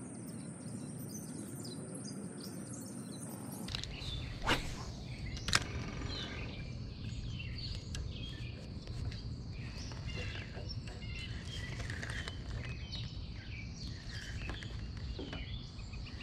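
Outdoor ambience with birds chirping throughout the second half, and two sharp clicks about four and five seconds in. For the first few seconds a steady high whine runs, then stops abruptly.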